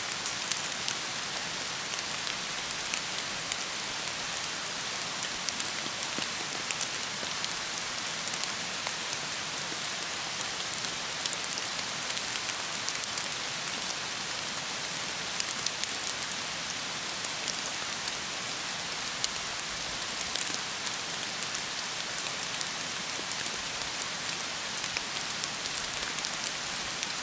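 Steady rain falling, with many scattered drop ticks.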